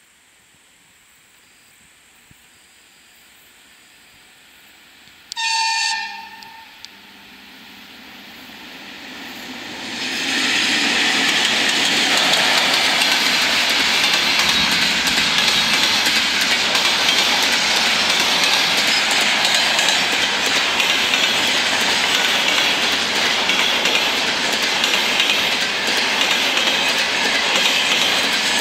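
VL10 electric locomotive hauling a container freight train: a rising approach and one short horn blast about five seconds in. From about ten seconds it gives way to the loud, steady rhythmic knocking of the wagons' wheels over the rail joints as the train passes.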